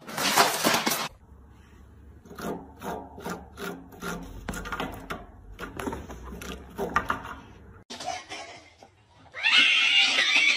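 A loud burst of noise in the first second. Then claws scratching a sisal-rope scratching post in rough strokes, about two to three a second. Near the end a cat hisses loudly for about a second.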